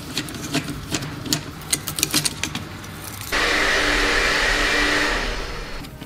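Light clicks and taps of a small screwdriver working the screws on a cinewhoop drone's frame. About halfway through, a sudden steady rushing noise with a faint hum cuts in and fades away near the end.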